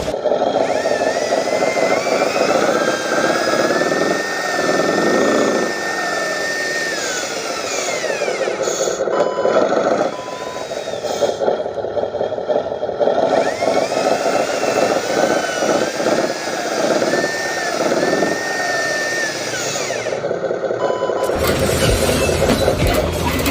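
Small electric motors and plastic gearboxes of remote-control model trucks whining. The pitch rises, holds and falls as the throttle is worked, with a few short beeps.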